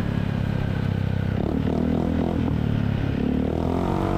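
Yamaha XMAX 250's single-cylinder engine running through an aftermarket Villan MV1 exhaust with the dB killer removed, held at low revs while riding. The pitch begins to climb near the end as the throttle opens.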